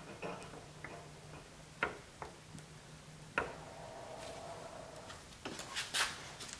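Light clicks and ticks of a plastic-welding tool's hot tip pressed against the plastic headlight housing as it melts the broken tab, with two sharper clicks about 2 and 3.5 seconds in. Near the end a louder clatter of knocks as the tool is lifted away.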